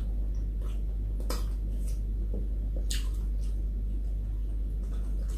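Close-up mouth sounds of eating by hand: chewing with a handful of short sharp smacks and clicks, the clearest about three seconds in. A steady low hum runs underneath throughout.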